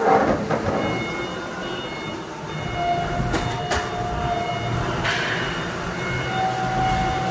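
Steady mechanical din of running machinery, with faint whining tones, a loud burst at the start and two sharp clicks about three and a half seconds in.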